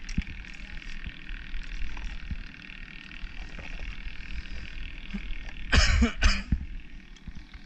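A clump of oyster shells knocking and scraping down onto a raft's matting: two heavy knocks about six seconds in, after a few small clicks of shell. A steady low rumble runs underneath.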